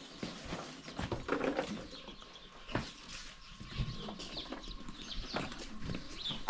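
Scattered light knocks and scrapes from a metal tray of charcoal being handled, lifted and carried, with birds chirping in the background.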